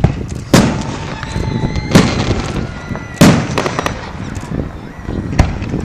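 Display fireworks bursting: four loud bangs, one to two seconds apart, each trailing off into a rumble.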